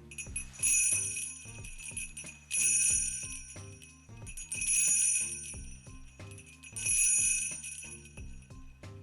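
A set of jingle bells shaken four times, about two seconds apart, each shake a bright jangle that rings out and fades, with lighter jingles in between. Background music with a steady beat runs underneath.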